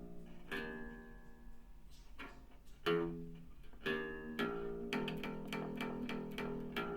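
Homemade bass cigar box guitar with a piezo pickup, picked and played through an amplifier. A few single notes ring out, the loudest about three seconds in, then a run of quick picked notes follows in the second half.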